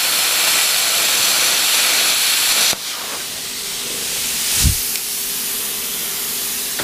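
PrimeWeld CUT60 plasma cutter torch cutting quarter-inch steel flat bar at 20 amps on 110 V, with a loud, steady hiss of the plasma arc. The hiss stops sharply a little under three seconds in as the cut finishes, leaving a quieter steady hiss and hum. A low thump comes about two-thirds of the way through.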